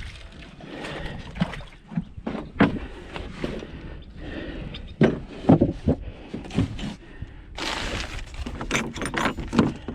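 Irregular metal knocks and clanks as the mounting bracket and bolts of a wooden nesting box are worked loose and shifted on its pole, with some brief ringing clinks in the middle and a rush of rustling noise near the end.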